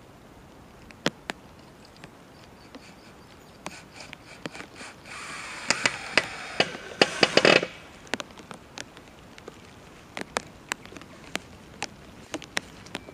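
Cordless drill driving a screw into a wooden pole for about two and a half seconds, the motor's whine dropping in pitch as the screw bites. It ends in a cluster of sharp clicks and stops suddenly.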